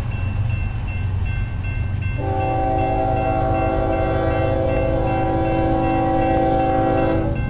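Railroad crossing bell dinging over and over. About two seconds in, the Union Pacific locomotive's air horn sounds one long blast for about five seconds, cutting off shortly before the end.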